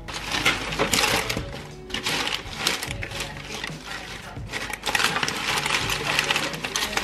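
Cellophane flower wrapping crinkling and rustling in irregular crackles as bunches of flowers and foliage are handled, over background music.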